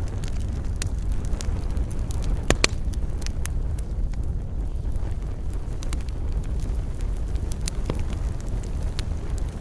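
Wood fire burning, with scattered sharp crackles and pops over a steady low rumble; the loudest is a quick pair of pops about two and a half seconds in.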